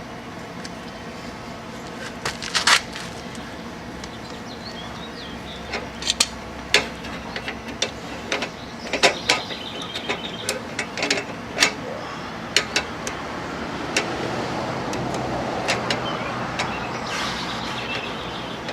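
Irregular metallic clicks and clinks of a car jack being cranked down with the lug wrench's handle. A broad rushing sound swells in about two-thirds of the way through and fades near the end.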